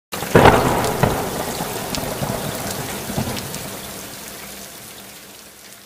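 Rain sound effect, an even patter, with a loud crack about half a second in, fading out gradually over the rest.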